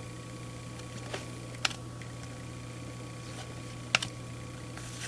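Baseball trading cards being handled and flipped through, giving a few short sharp clicks and taps, the loudest a double click about four seconds in. A steady hum sounds underneath.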